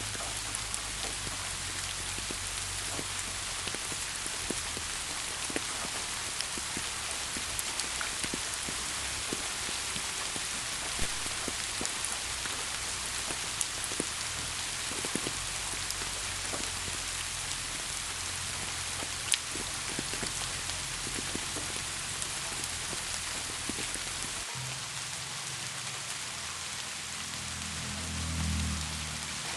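Steady rain falling, a dense even hiss with scattered sharper drop ticks. A low rumble swells briefly near the end.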